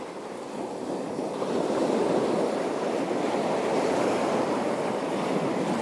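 Waves washing in along the shore: a steady rush of water that swells a little about a second and a half in.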